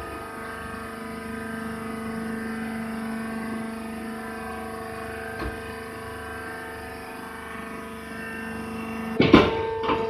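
Hydraulic maize husk baler's power unit running with a steady hum. Near the end there is a loud, sudden clank.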